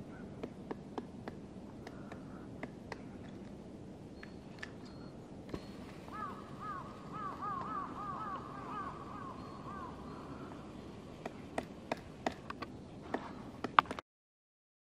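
Black woodpecker chiselling into a tree trunk, giving scattered sharp taps that come thicker and louder near the end. In the middle a bird calls a rapid series of about a dozen ringing notes over some four seconds.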